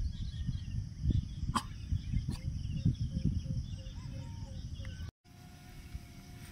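Wind buffeting the phone's microphone in uneven gusts, with birds chirping in the background. The sound cuts out briefly about five seconds in.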